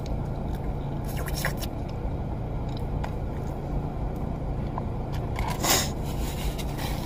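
Biting and chewing into a crunchy batter-fried Korean corn dog, with one crunching burst about a second in and a louder one near the end, over a steady low hum of the car.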